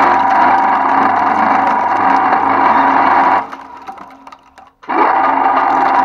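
Twin-shaft shredder running with a steady motor and gear whine as its cutter teeth chew up a crumpled foil packet and plastic. A little past the middle the sound drops away for about a second, then comes back suddenly at full level.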